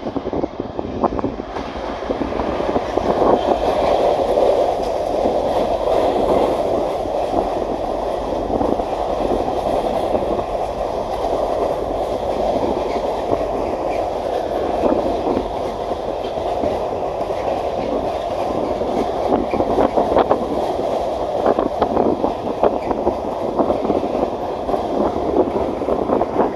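Container freight train passing close by: a steady rumble of wagon wheels on the rails, with sharp clicks as the wheels run over the junction's points and rail joints. It swells over the first couple of seconds as the train draws level, then holds steady.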